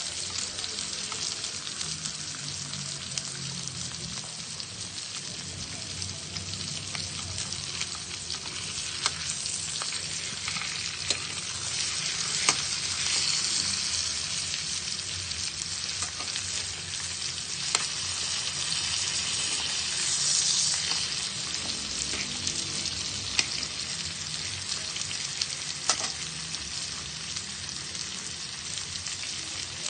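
Pork chops sizzling as they grill: a steady hiss of fat and juices with scattered sharp pops and crackles, swelling louder twice, around the middle and about two-thirds of the way through.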